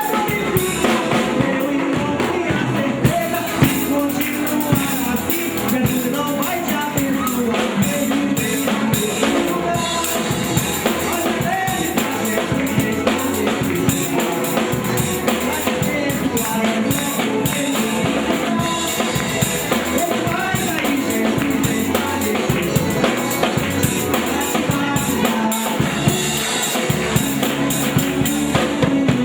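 A live gospel band playing an instrumental passage: drum kit driving a steady beat with bass drum and rimshots, over electric guitar, bass guitar and keyboard.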